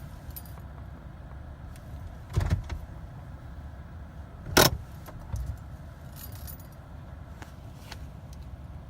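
Keys jangling and clicking at a Jeep's ignition as the key is worked, with a few sharp knocks, the loudest about four and a half seconds in, over a steady low hum. The engine does not crank: a no-start that the owner puts down to the park/neutral interlock or the transmission control module.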